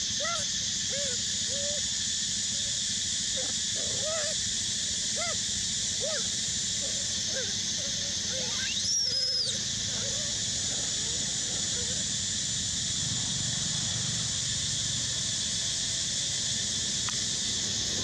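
Outdoor ambience: a steady high hiss, with short animal chirps scattered through the first half and one louder, high-pitched squeal about nine seconds in.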